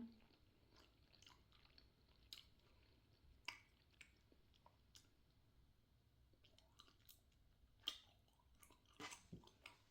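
Quiet, close-up chewing of a sakura mochi, with a few soft, scattered mouth clicks and smacks.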